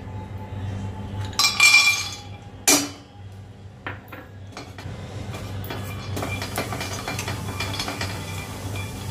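Whole almonds dropped into an empty stainless steel frying pan, clattering on the metal for under a second, followed by one sharp knock. Then the almonds click and rattle against the pan as they are stirred with a silicone spatula, over a low steady hum.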